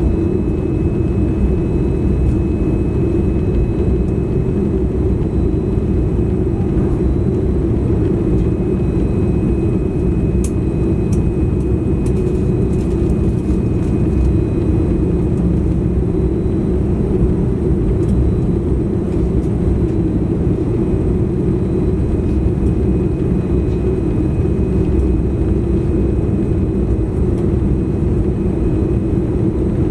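Cabin noise of a Boeing 787-10 on final approach, heard from a window seat beside the wing: the GE GEnx engine and the airflow make a steady low rumble, with a faint steady high whine above it. A few faint ticks come about a third of the way in.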